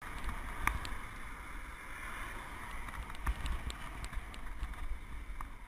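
Steady wind noise on the microphone with a low rumble and a few scattered light clicks.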